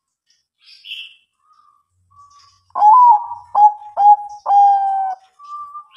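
Zebra dove (Bangkok-type perkutut) cooing: a phrase of four clipped coo notes beginning about halfway through, the first gliding up, then two short notes and a longer final one.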